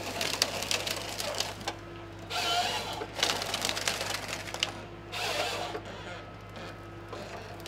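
Malwa 560H harvester with a Log Max 928 head working a felled tree: the machine's engine hums steadily, while branches crackle and snap in about four bursts as the head feeds the stem through its crown and strips the limbs.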